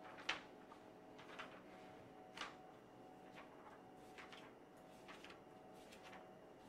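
Near silence: room tone with a faint steady hum and a few scattered soft clicks, the loudest about a third of a second in.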